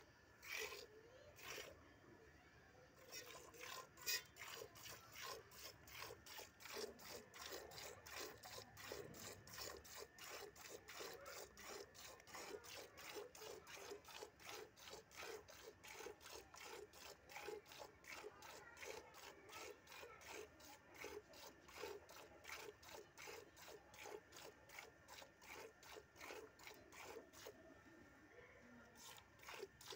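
A cow being milked by hand into a steel bowl: faint, steady, rhythmic squirts of milk into the bowl, about three or four a second. The rhythm settles in about three seconds in and breaks off briefly near the end.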